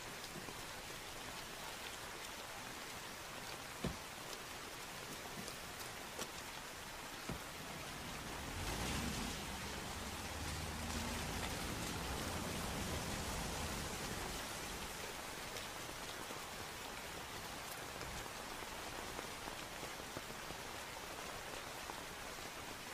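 Heavy rain falling steadily. A low rumble swells in the middle and fades again, with a few faint clicks here and there.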